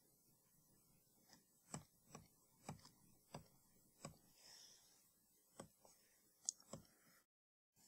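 About eight light, separate clicks at an uneven pace, the sound of number keys being clicked in one by one on an on-screen HP 50g calculator during a multiplication.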